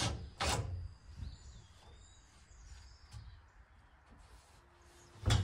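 Knocks on a wooden rafter, most likely hammer blows driving nails: two in the first half second, then a pause, and one louder blow near the end. Birds chirp faintly in the pause.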